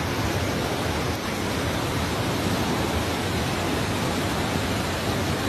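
Steady rush of floodwater flowing in a broad sheet over flooded ground after torrential rain.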